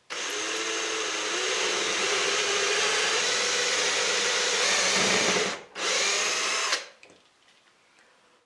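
Cordless drill with a 6 mm bit boring a through hole in melamine-faced particle board, guided by a doweling jig. It runs steadily for about five and a half seconds, stops briefly, then runs again for about a second before stopping.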